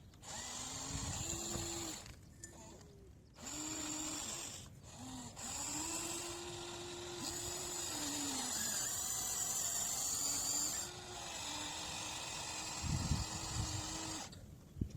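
Small electric motors of radio-controlled construction models whining in repeated spurts, each one sliding up in pitch as it starts and down as it stops, over a steady high hiss. A few low thuds come near the end.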